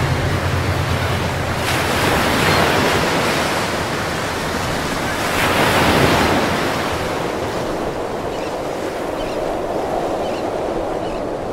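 Sea waves surging and breaking on a beach, with two louder surges, about two and six seconds in, then a steadier lower wash.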